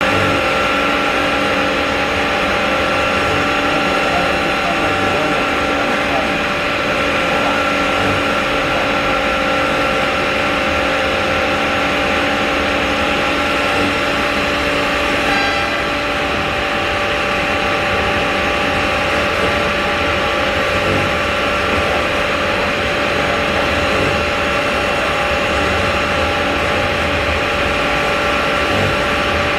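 5-axis CNC bridge saw running steadily: a constant mechanical hum over noise, with several steady whining tones and a brief change about halfway through.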